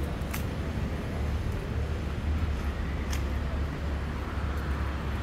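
City street background: a steady low rumble of road traffic, with a couple of short sharp clicks.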